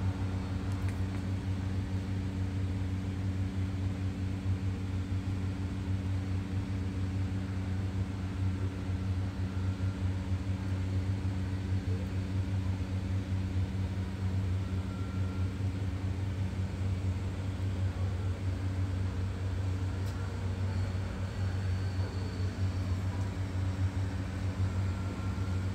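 A motor running steadily, giving a constant low hum that does not change in pitch.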